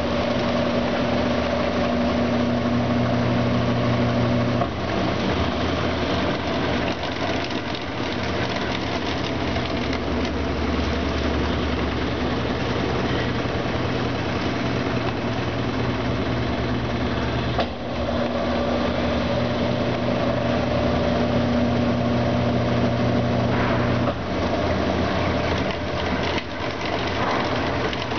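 Brastemp Ative! 11 kg washing machine running: a steady motor hum over a noisy churning wash. The hum cuts out about five seconds in, comes back near the middle and stops again a few seconds before the end.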